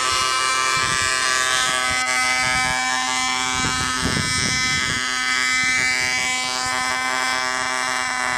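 Small engine of an Air Skipper T2 radio-controlled helicopter running unmuffled after its muffler has fallen off, a steady buzzing whine that holds one pitch, mixed with the rotor.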